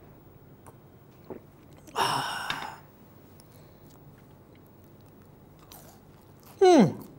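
A man's breathy, satisfied "aah" exhale after a swallow of juice about two seconds in, then faint mouth sounds, and near the end a short wordless "mmm" that falls in pitch as he eats a French fry.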